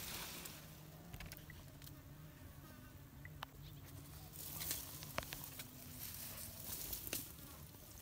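A fly buzzing, its hum wavering slightly in pitch, with a few sharp clicks about halfway through.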